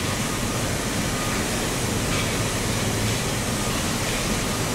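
Steady steelworks plant noise: an even, loud roar and hiss with no distinct knocks or tones.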